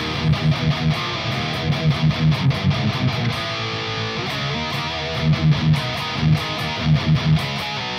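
Electric guitar played through an Atomic Amplifire amp-modelling unit on its rhythm tone, a riff of rhythmic low chugs. About three and a half seconds in, a chord is held and rings out briefly before the chugging resumes.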